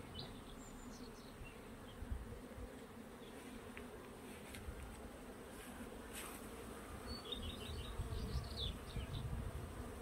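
Honey bees humming steadily at a hive entrance, many bees flying in and out on warm-weather flights, the colony busy with foraging. Brief high bird chirps come in a quick run of short notes about seven seconds in.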